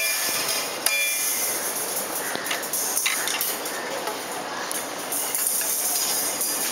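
Hammer striking stone paving slabs: two sharp metallic clinks about a second apart, then a steady background hiss with a few faint taps.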